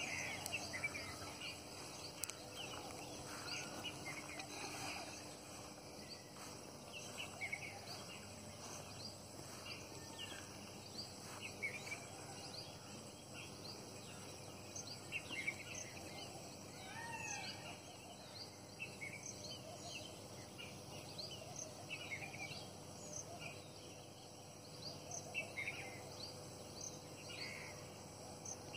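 Outdoor ambience of many short bird chirps and calls, scattered irregularly, over a faint steady hiss.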